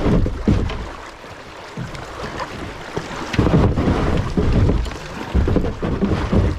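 Kayak on moving creek water, with water and wind buffeting the microphone in loud, irregular low rumbles that ease off about a second in and build again after about three seconds.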